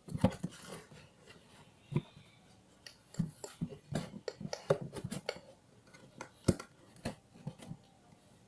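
Scattered small clicks, taps and clatter of a plastic toy squishy vending machine being handled, its parts knocking at uneven intervals.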